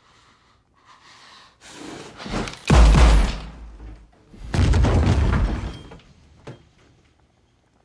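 Two heavy, booming pistol shots, about two seconds apart, each with a long rumbling tail; a rush of noise builds just before the first. A small sharp click follows near the end.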